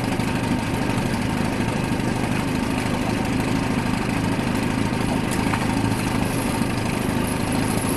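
Small outboard motor running steadily at low trolling speed.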